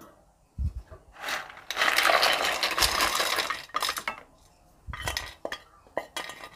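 Crisp fried raw banana pieces tipped from a steel bowl with a spoon, clattering and sliding into a pan of bubbling jaggery syrup for about two and a half seconds, with separate knocks and taps of metal on metal before and after.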